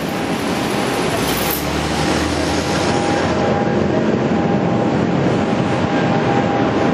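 Four GEnx-2B turbofan engines of a Boeing 747-8 at takeoff thrust during the takeoff roll: a loud, steady jet rush with a constant whine in it, building over the first second and then holding.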